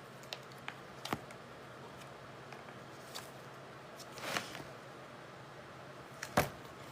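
Cookbook pages being turned by hand: a few faint clicks, a soft rustling sweep of paper about four seconds in, and a sharper click near the end.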